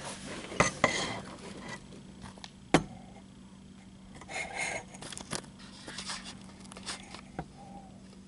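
Handling noise of a Ruger 10/22 Takedown rifle being lifted to the shoulder: a few sharp clicks and knocks, the loudest nearly three seconds in, with the rustle of a jacket sleeve rubbing against the stock a little after four seconds.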